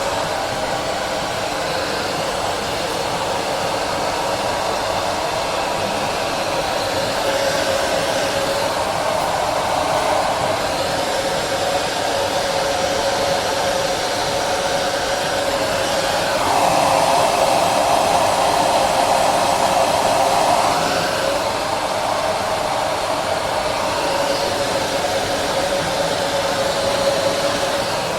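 Repronizer hair dryer running steadily: a constant rush of air with a steady tone beneath it. It swells louder for a few seconds past the middle.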